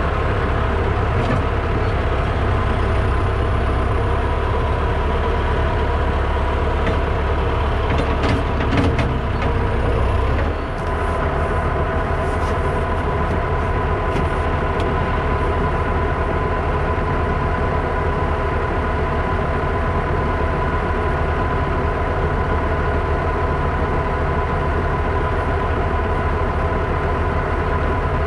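Tractor engine running steadily, with a constant whine over a deep rumble; a few knocks come about eight to nine seconds in, and at about ten seconds the deep rumble drops away as the engine note changes.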